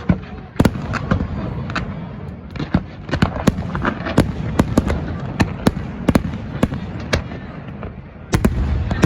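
Fireworks exploding: a fast, irregular string of sharp bangs, at times several a second, over a continuous low rumble that swells about eight seconds in.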